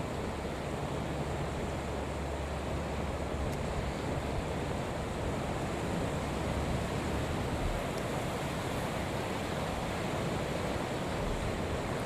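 Steady wind and surf from a rough, whitecapped sea, with wind buffeting the microphone.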